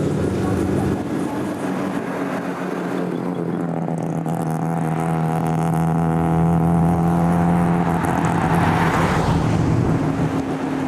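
Mazda rotary engine running at a steady, held pitch while the car cruises, with a rush of noise swelling about nine seconds in.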